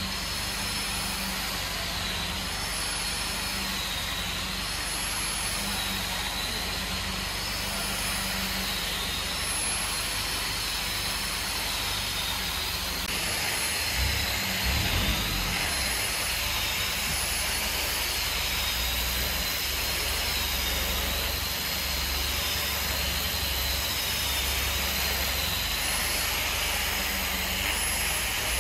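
Steady machine noise with a high whine that wavers up and down in pitch every couple of seconds; a heavier low rumble joins about halfway through.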